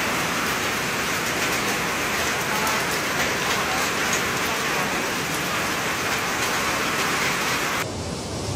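Heavy rain pouring onto floodwater in a street, a steady dense hiss. Just before the end the rain hiss cuts off abruptly and a duller, quieter noise takes its place.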